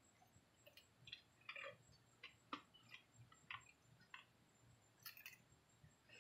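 Faint, irregular little squeaks and rubs of a damp towel rag wiped over a leather car seat, applying paint thinner and dye.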